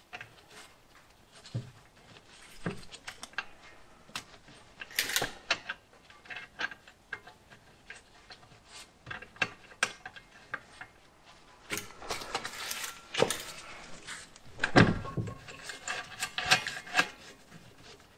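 Irregular metallic clicks and clinks of a washer and nut being fitted by hand onto the upper ball joint of a Jaguar XJ front hub, with a busier run of rattling about twelve to seventeen seconds in.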